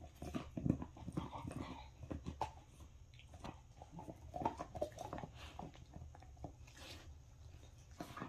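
Bull terrier gnawing and chewing on a chew toy, making irregular clicks and crackles of teeth on the chew, with a few brief snuffly sounds about four to five seconds in.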